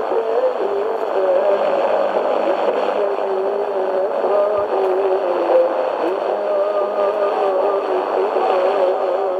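Tecsun PL-398MP portable radio's speaker playing a noisy shortwave signal on 6040 kHz: a steady hiss and rushing noise with faint tones that waver and step in pitch underneath.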